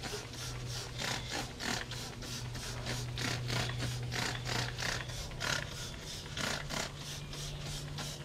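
A trigger spray bottle of degreaser squeezed over and over, a short hissing squirt about three times a second, spraying the inside walls of a metal smoker cabinet, over a steady low hum.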